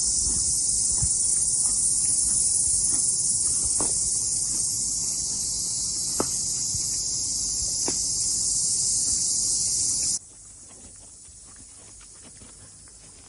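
Loud, steady, high-pitched chorus of insects, with a few faint clicks. It cuts off abruptly about ten seconds in, leaving a much quieter background.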